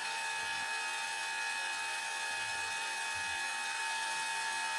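Small electric screwdriver motor running at a steady high whine, backing out the screws that hold a Sonnet M.2 4x4 PCIe SSD card together.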